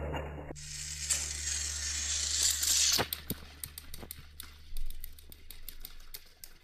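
Battery-powered toy train engines on plastic track, pushed buffer to buffer: a high motor whir that stops about three seconds in, then rapid, irregular plastic clicking and rattling that fades away.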